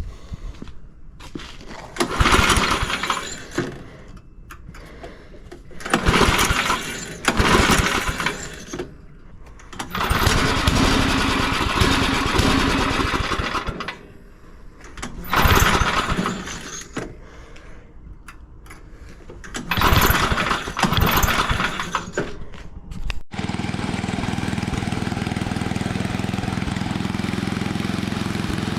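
Craftsman snowblower's small gas engine being pull-started again and again, catching and running for a second or two about five times and dying each time. Near the end, after an abrupt break, it runs steadily. It won't stay running, which the owner is pretty sure is a carburetor fault.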